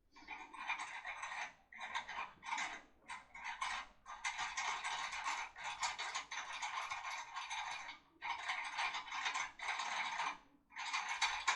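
Foil-wrapped lockpick tool worked back and forth inside a Lince cylinder lock, giving a metallic rattling and scraping in bursts with short breaks, the longest run in the middle.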